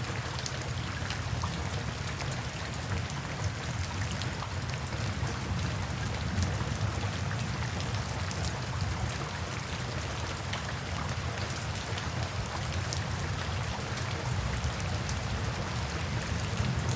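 Steady rainfall with many separate drops ticking sharply over a constant hiss, and a steady low rumble underneath.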